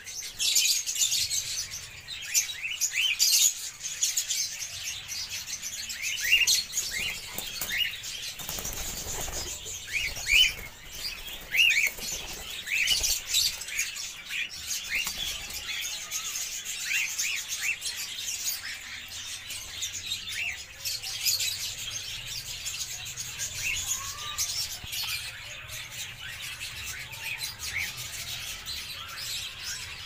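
Mixed aviary flock of cockatiels and lovebirds chattering: a dense stream of high chirps with many short rising calls repeated throughout, and some wing flapping.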